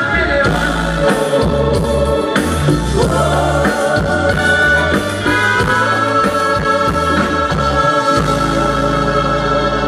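A live band plays dance music loud over a PA, with a heavy bass line changing notes under sustained higher melody tones and some singing.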